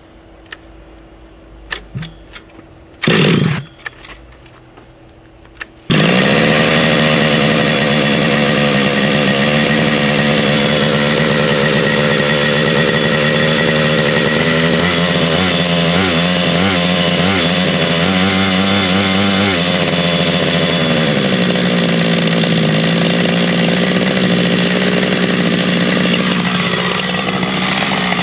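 Bergen Industrial Twin engine of a radio-controlled helicopter being pull-started: a short loud rasp of the starter cord about three seconds in, then the engine catches about six seconds in and runs steadily and loudly. Its speed drops a step just after twenty seconds as it is brought down toward idle, and it then holds there.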